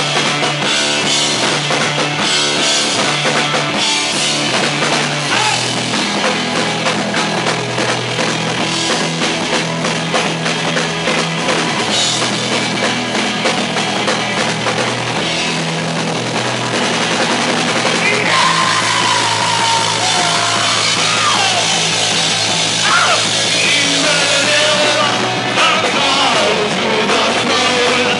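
Rock band playing live, loud, with the drum kit prominent.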